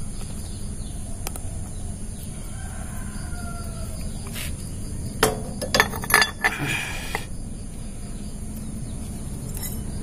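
Metal clinks and clanks from about five to seven seconds in as a steel 40-tooth rear sprocket is set onto the motorcycle's rear hub studs. A faint rooster crow comes earlier, over a steady low background noise.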